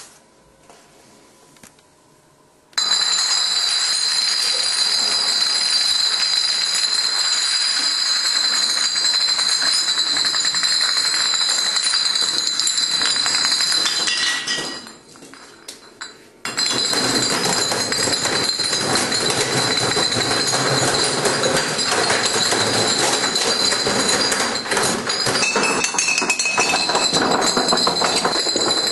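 Glass beer bottles toppling in a long row like dominoes: a continuous rapid clinking of glass on glass that starts about three seconds in, breaks off for about two seconds midway, then starts again.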